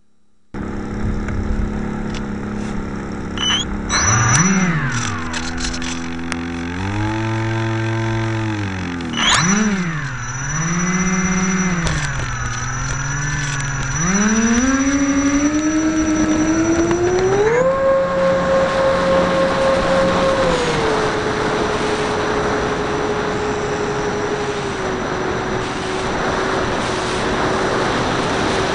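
Electric motors and propellers of a Banana Hobby P-38 radio-controlled model plane, heard from a camera on board. The motors are throttled up and down in short swells, then spool up in a steady rising whine for the takeoff run and hold a high pitch in flight, with wind rushing over the airframe.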